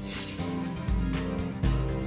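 Instrumental intro theme music: held chords over heavy bass hits, with a brief wash of noise at the start and light percussive ticks throughout.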